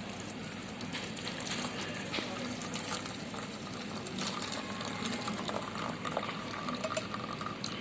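Boiled thoothuvalai leaf decoction being strained off and poured: a steady run of liquid with frequent small clinks and scrapes of kitchen utensils.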